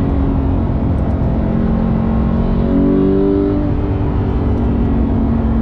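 Porsche 911 GT3's naturally aspirated flat-six engine heard from inside the cabin on track. The engine note sags slightly, jumps up in pitch about two and a half seconds in, then holds steady.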